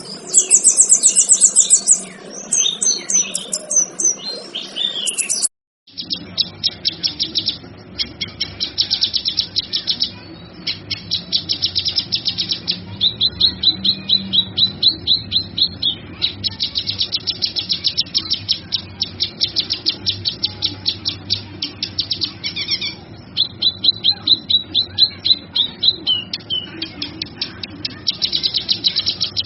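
Male kinoy bird singing: high trills and varied whistles, then after an abrupt break, long runs of rapid, repeated high chirping notes separated by brief pauses.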